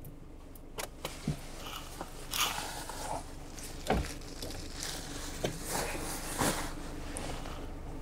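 Camouflage fabric beanbag being handled and pressed onto a car's open window frame as a camera rest: crunching and rustling of its filling and cover, with scattered clicks and a short thump about four seconds in.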